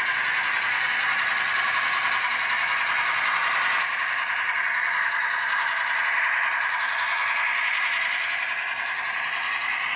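HO scale model freight train running along the track, a steady whirring rolling noise of the cars' wheels on the rails.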